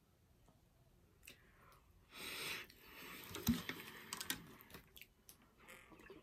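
Faint scattered clicks and taps, typing on a computer keyboard, with a short rush of noise about two seconds in and a single thump soon after.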